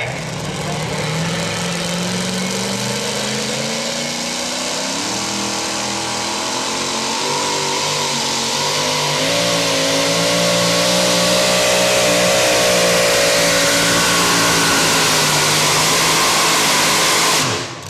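Supercharged engine of a modified two-wheel-drive pulling truck running flat out under load on a pull. The revs climb over the first few seconds, then hold high with a wavering pitch, and the sound cuts off abruptly near the end.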